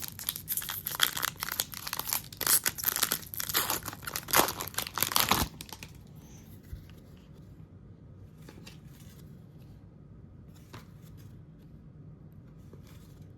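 A trading card pack's wrapper being torn open and crinkled: a dense run of ripping and crackling that stops about five and a half seconds in. After that come only a few faint rustles as the cards are handled.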